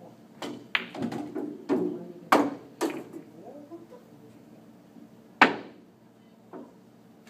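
Pool shot: the cue tip strikes the cue ball, then balls clack against each other and knock off the cushions, about six sharp knocks over two and a half seconds. A single loud, sharp knock with a short ring follows about five seconds in, and a faint knock near the end.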